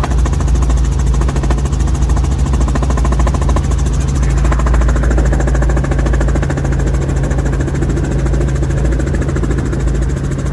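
Steady cabin noise of a Robinson R44 Raven helicopter in flight: its Lycoming six-cylinder piston engine and rotors running with an even, low drone.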